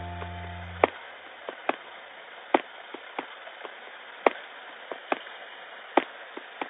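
Background music at a quiet break: a held chord dies away within the first second, leaving a steady ticking beat of sharp clicks a little under a second apart over faint hiss.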